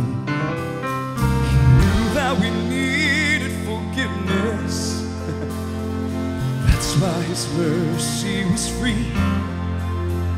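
Southern gospel song performed live: a male singer's voice with vibrato over band accompaniment with steady bass and chords, and a drum hit about six and a half seconds in.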